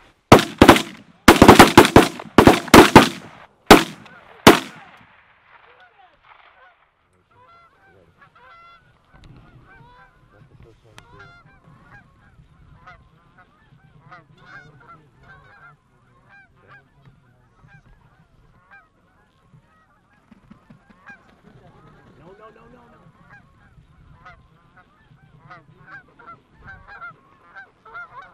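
A rapid volley of about a dozen shotgun shots over the first four and a half seconds as the hunters fire on incoming geese, followed by steady goose honking.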